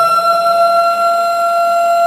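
Siren sound effect levelling off at the top of a slow rising wail and holding one steady pitch.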